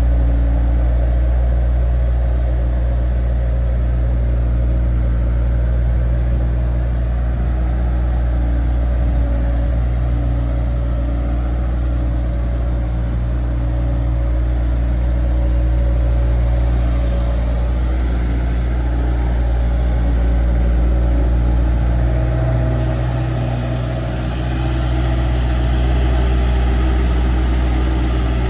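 Bobcat skid steer's diesel engine running steadily under working load, with a brief dip in loudness a little past the three-quarter mark before it comes back up.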